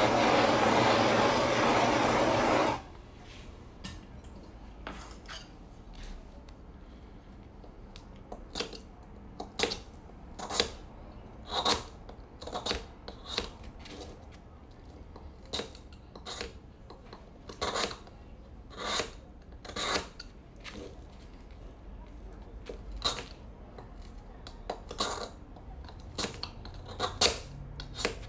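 Handheld blowtorch flame hissing steadily against a block of ice, cutting off sharply about three seconds in. Then a knife chipping and shaving the ice block in short, irregular scraping strokes, about one or two a second.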